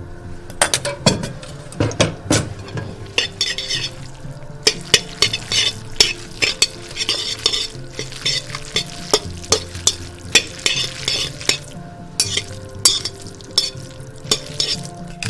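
Freshly made tagliatelle being stirred and tossed in a metal bowl with a metal utensil: many sharp clinks and scrapes of metal on metal, with wet, hissing swishes of the pasta.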